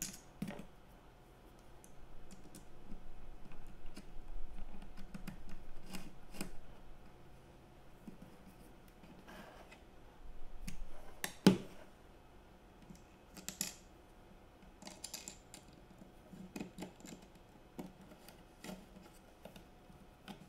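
Hand assembly of a plastic CNC dust boot: light clicks, taps and handling of small plastic parts and screws, with one louder knock about halfway through.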